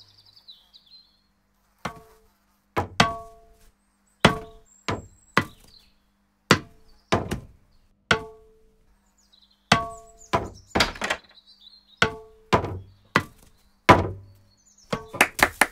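A ball being batted repeatedly off a racket's strings: sharp hits about once a second, many with a short ringing tone, and a quick flurry of hits near the end.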